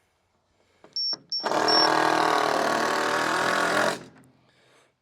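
Three short high electronic beeps, then a motor runs steadily for about two and a half seconds and cuts off.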